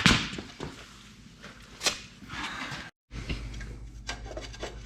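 A few light clicks and knocks of metal engine parts being handled during a teardown, one sharper click about two seconds in and a small cluster near the end, with the sound cutting out briefly about three seconds in and a low steady hum after.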